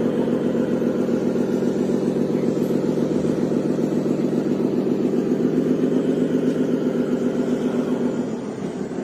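A radio-controlled construction machine running: a steady, fast-pulsing engine-like hum that dies away near the end.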